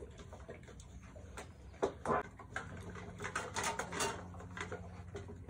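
Two Cane Corso dogs eating moist fresh food from stainless steel bowls: irregular chewing and lapping with clicks and knocks of muzzles against the metal, loudest about two seconds in.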